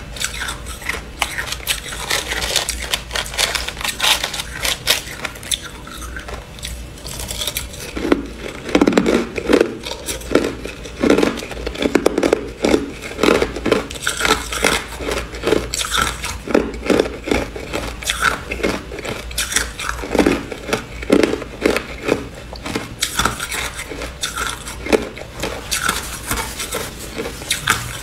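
Crushed ice being crunched between the teeth in quick, loud bites, with a metal spoon scraping and clinking through crushed ice in a plastic cup. The crunching grows heavier and deeper from about eight seconds in until a few seconds past the middle.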